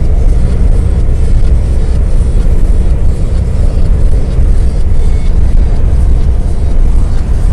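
A truck on the move, heard as a loud, steady low rumble of engine, road and wind noise with no breaks or distinct events.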